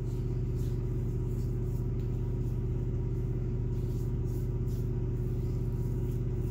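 Steady low hum throughout, with faint short scratchy strokes of fingertips rubbing over freshly shaved stubble on the face and neck, feeling for how close the shave is.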